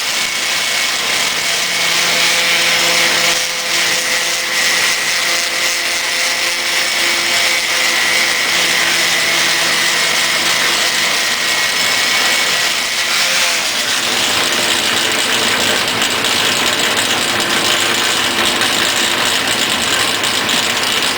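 Power buffer running steadily against a wooden baseball bat as it polishes the wood, a continuous machine noise with a steady whine. Its tone shifts about two-thirds of the way through.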